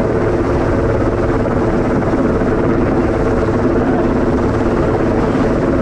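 Helicopter hovering close overhead during an antenna lift: loud, steady rotor and engine noise with a fast, even pulsing beat.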